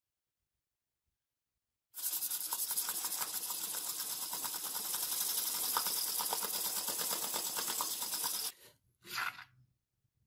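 Steel knife blade being sharpened by hand on a strip of sandpaper over a wooden block, the edge scraping steadily against the grit. It starts about two seconds in, stops abruptly after about six seconds, and one short scrape follows near the end.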